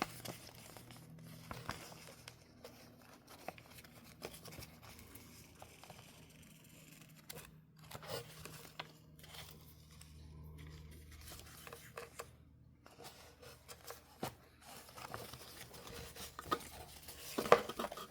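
Hands handling packaged tape rolls and sticker sheets: light crinkling and rustling of plastic packaging with scattered small clicks and taps, and a sharper knock about seventeen seconds in.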